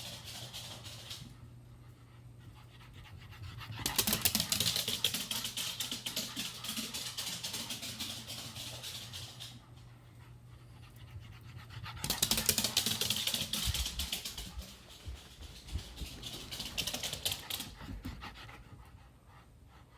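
A dog panting rapidly in spells of several seconds with quieter pauses between them, over a steady low hum.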